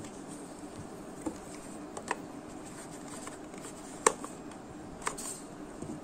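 A few light plastic clicks and knocks as a handheld cordless vacuum's dust cup is handled and fitted back onto the vacuum, the sharpest click about four seconds in.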